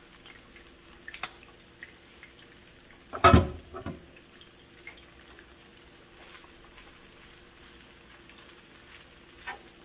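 Quiet, steady sizzling of kimchi fried rice and tilapia frying in skillets, with a few light clicks of utensils and one loud thump about three seconds in.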